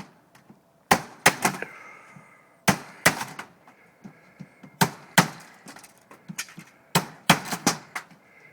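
Repeated hard blows from a hand tool striking a window frame as it is torn out. The blows come in quick clusters of two to four, about every two seconds.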